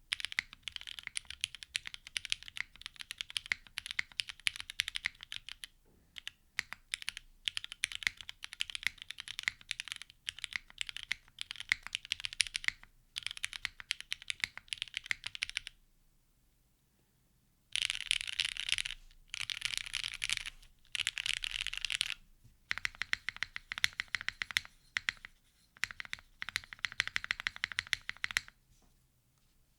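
Typing on a plateless mechanical keyboard, a Laminar Sagrada with lubed and filmed Cherry Nixie switches and GMK Cafe keycaps: runs of quick keystroke clicks that stop for a couple of seconds about sixteen seconds in, then resume and die away near the end.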